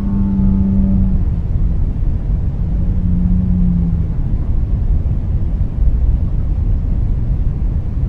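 Whale calls over a steady low rumble of noise: a low call with overtones in the first second, then a second low call, falling slightly, from about two and a half to four seconds in.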